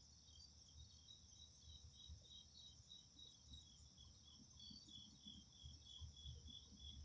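Near silence with faint night insects: a steady high trill with a regular chirp about three times a second.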